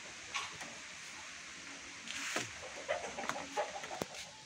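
Chickens clucking, in a few short calls mostly in the second half, with a sharp click near the end.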